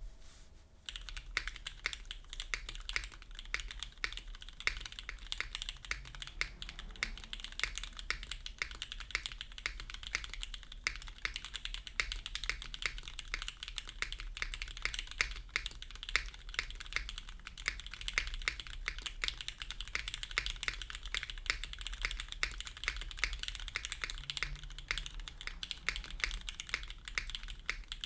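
Fast, continuous typing on a custom mechanical keyboard with lubed and filmed Cherry MX Black clear-top linear switches, an FR4 plate and PBT keycaps. Dense keystroke clacks start about a second in.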